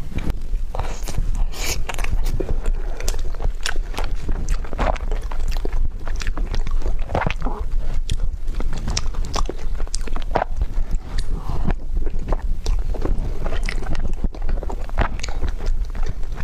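Close-miked chewing and mouth sounds of someone eating tiger skin roll, a soft rolled sponge cake, with frequent short, sharp smacks and clicks.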